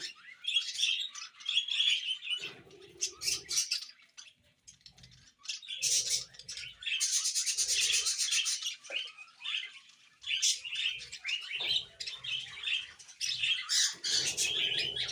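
A pair of budgerigars chattering and chirping in quick, busy warbles, with a brief lull about four seconds in.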